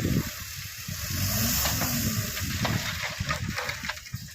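Heavy diesel earthmoving machinery running, a steady low rumble with hiss over it, loudest for a couple of seconds in the middle.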